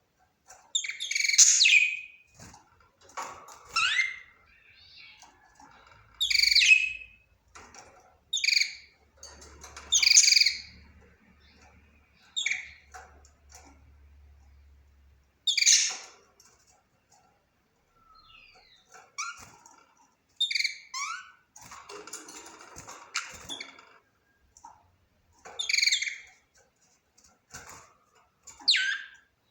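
Budgerigar chirping: loud, sharp, short calls every couple of seconds, with softer warbling chatter in between.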